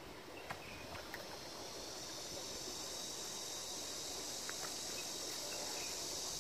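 Insects chirring in a steady high-pitched drone that swells and grows louder, with a few faint clicks.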